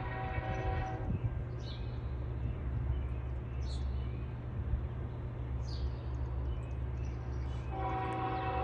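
Approaching diesel locomotive's air horn sounding for a grade crossing: one long chord-like blast that ends about a second in, then another long blast starting near the end. A low steady rumble runs beneath, with a few short bird chirps.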